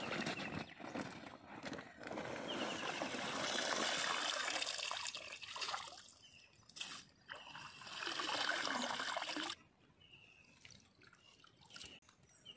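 Shallow pond water sloshing and trickling as someone wades and handles a net and bag in it, in two long stretches.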